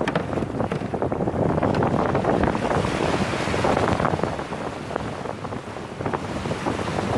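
Shallow surf washing and foaming around a kayak, with wind blowing on the microphone and a few short sharp knocks or splashes.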